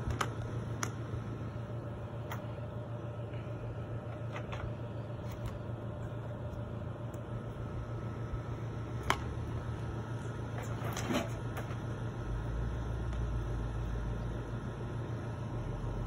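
Steady low mechanical hum, joined by a deeper rumble about 12 seconds in, with a few light clacks and knocks scattered through it, the sharpest about 9 and 11 seconds in, as roofing shingles are handled and stacked.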